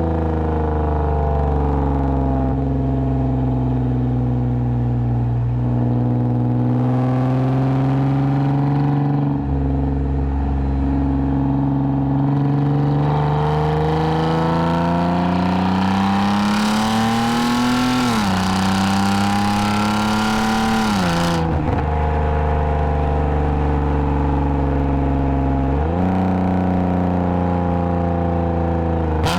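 2010 Lexus IS250 AWD's V6 through a full aftermarket exhaust with valved mufflers, cruising steadily, then pulling with a rising pitch about halfway through. The pitch drops sharply at an upshift, climbs again, then falls as the throttle is lifted, settling back to a steady cruise.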